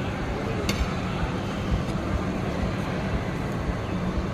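Steady hubbub of a busy open-air mall with a low hum, broken by a few light clicks of the Turkish-ice-cream vendor's long metal paddle against the cart.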